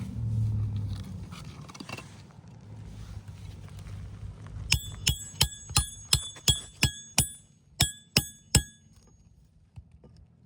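Hammer striking a roof snake shingle-repair tool about eleven times, quick ringing metal-on-metal blows about three a second with a short pause before the last three, driving a nail to fasten a replacement roof shingle.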